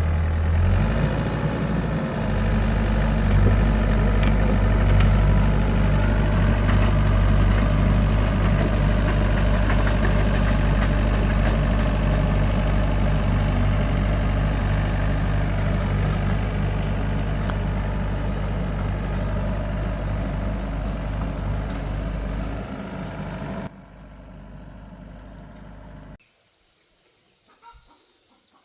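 Excavator's diesel engine running steadily, slowly getting quieter over about twenty seconds, then cutting off abruptly near the end.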